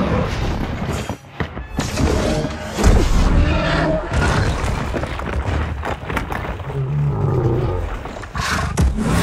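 Film battle sound mix: a monster creature's roars, heavy thuds and crashes over a music score, with one loud impact about three seconds in.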